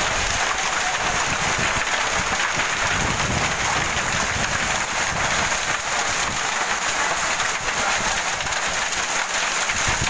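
Heavy storm rain pouring steadily, with wind buffeting the microphone in irregular gusts.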